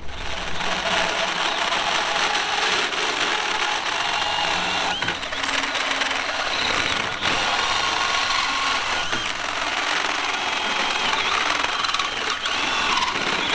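Hercules cordless drill driving a hole saw through a steel bracket: a steady run of the motor and the saw teeth cutting metal, with a few faint squeals.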